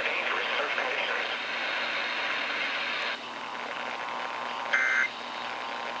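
Noisy radio audio cuts off about three seconds in. Near the end comes a short, loud burst of EAS end-of-message data tones, a buzzy two-tone digital squawk, and the next burst starts right at the end, part of the repeated end-of-message sequence that closes an emergency alert broadcast.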